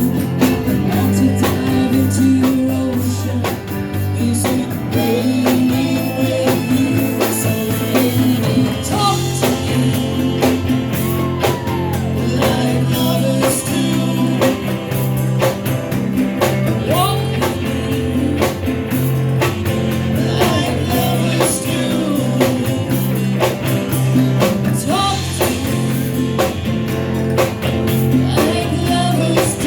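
Live rock band playing a cover song, with a woman singing over guitar, bass and a drum kit. The singing comes in about a third of the way through.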